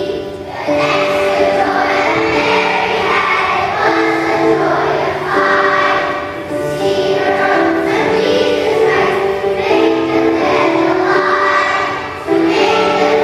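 A choir of young children singing a song together with a musical accompaniment, with short breaks between phrases.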